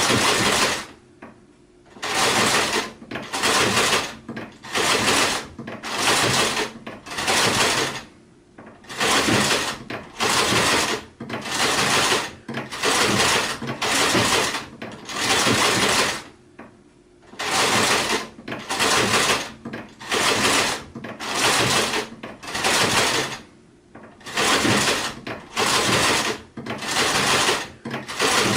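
Sewing machine stitching in short runs under a second long, starting and stopping about once a second, with a few longer pauses between runs.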